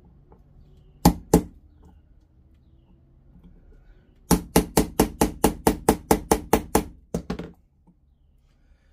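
Small hammer striking a punch to drive out the pin holding the firing pin stop in a Savage 1921 shotgun's steel breech block: two sharp strikes about a second in, then a quick run of about a dozen taps at roughly five a second, and two more just after. The old pin is stuck and slow to come out.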